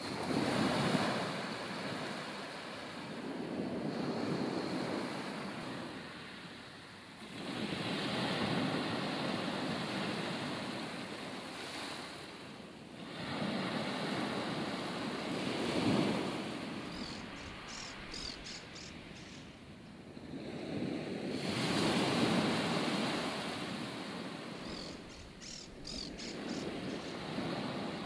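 Sea waves breaking and washing up a beach, the surf surging and easing every few seconds, with wind blowing through.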